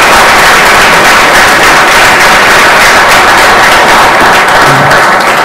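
Audience applauding: dense, sustained clapping from a large crowd that starts to thin out near the end.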